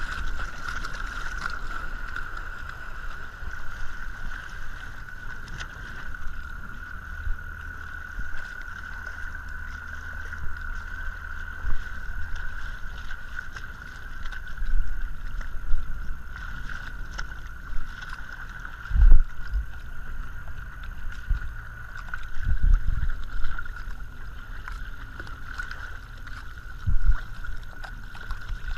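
Bass boat's outboard motor running with a steady whine, heard muffled, while water splashes against the hull right beside the microphone. A few heavy water slaps thud against the hull, the loudest about two-thirds of the way in.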